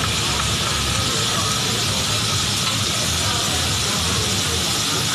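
Bean sprouts sizzling steadily on a hot teppanyaki steel griddle as they are turned with a spatula and liquid is poured over them from a bottle.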